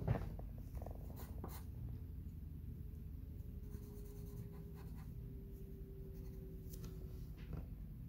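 Graphite pencil scratching on paper while a drawing is sketched, with a sharp knock right at the start and a few light taps.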